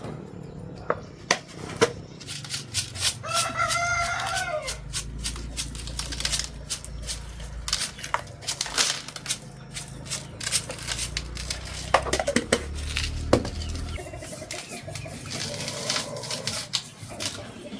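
A rooster crows once about three seconds in, in one call that falls slightly at its end. Chickens call faintly later on, over scattered sharp clicks and knocks.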